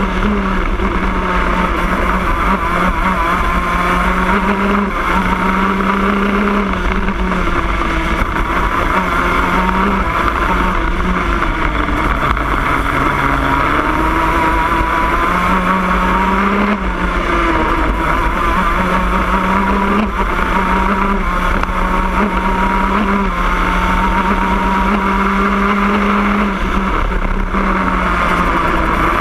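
Shifter kart's two-stroke engine running hard, recorded from on board the kart, its pitch rising and falling in steps as it accelerates and slows through the corners, with a lower stretch about halfway through.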